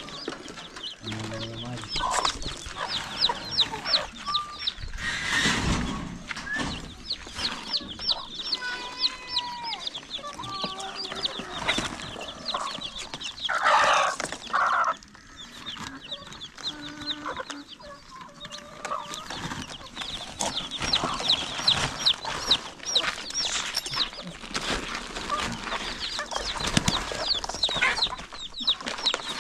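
A brood of young broiler chicks peeping continuously: many short, high, downward chirps overlapping one another. There are a few lower calls among them, and a couple of louder rustling noises about halfway through.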